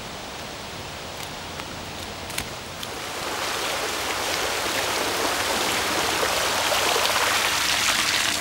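Bicycle wheels splashing through shallow floodwater. The rushing spray grows louder as the bike comes close and passes, then cuts off suddenly.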